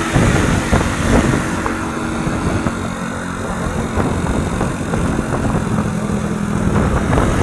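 Tour bus engine running with road noise, a steady low drone under a rumbling background.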